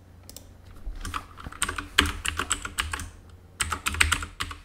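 Rapid typing on a computer keyboard in two quick bursts of keystrokes, the first starting about a second in and the second near the end.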